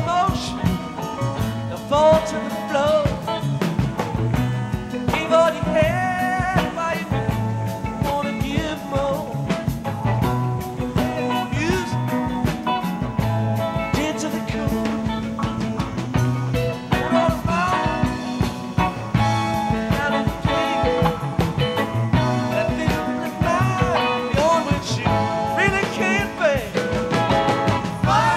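Background music: a rock-style song with a steady beat.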